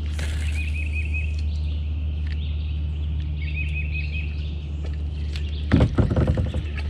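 A songbird repeating a short trilled phrase of several quick notes every few seconds, over a steady low hum. About six seconds in, a brief burst of clattering knocks as a fishing rod and reel are handled in the plastic kayak.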